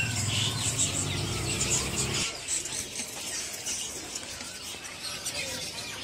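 Many caged songbirds chirping and calling at once: a dense chatter of short high chirps. A low background hum underneath stops about two seconds in.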